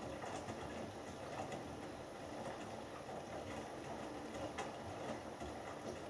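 Hoover Dynamic Next front-loading washing machine in the main wash of a 60 °C cotton cycle, its drum tumbling wet laundry. The tumbling makes a steady swishing with a few soft thumps scattered through it.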